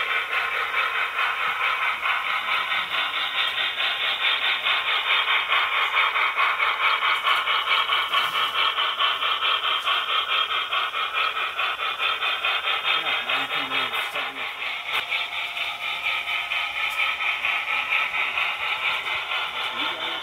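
HO-scale model train, a Virginian steam locomotive with its freight cars, running past: a steady, rapidly pulsing mechanical sound.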